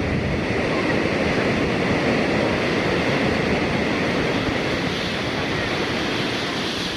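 Small waterfall and stream water rushing steadily over rocks, an even unbroken noise.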